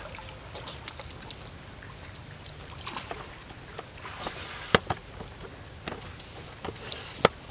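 Water splashing and lapping as young monkeys swim and paddle, with irregular small splashes and two sharp, louder splashes, one near the middle and one near the end.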